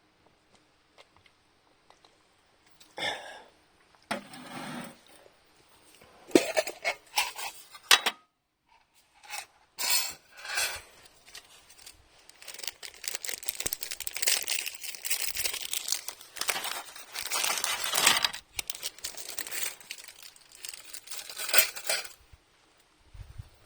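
Camping gear being handled: clinks of cookware, then a long stretch of crinkling and rustling, like packaging or a bag being worked.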